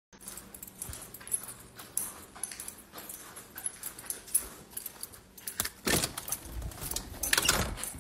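Handling noise: irregular rustling, clicks and small clattering knocks, loudest about six seconds in and again shortly before the end.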